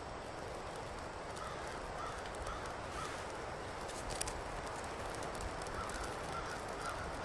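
Steady rushing outdoor background noise, with a bird calling in short repeated notes in two runs of about two calls a second, and one brief sharp scrape about four seconds in.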